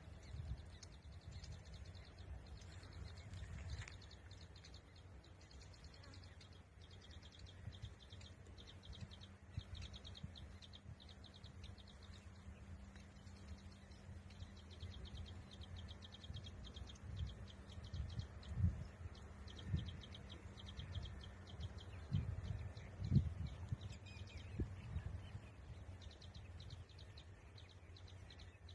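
Outdoor rural ambience with fast, high-pitched chirping running throughout, over a steady low hum, with a few dull low thumps in the second half.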